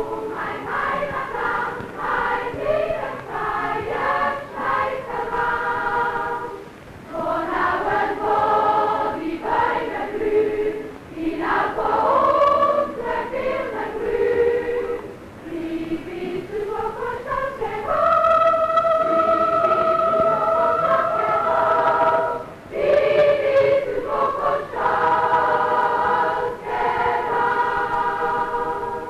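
A large choir of schoolchildren singing a song in several phrases, with a long held note about two-thirds of the way through.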